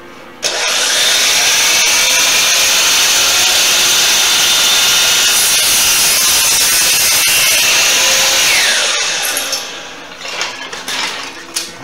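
DeWalt sliding miter saw (chop saw) starting up and cutting scrap wood for about eight seconds, then winding down with a falling whine. A few lighter knocks follow near the end.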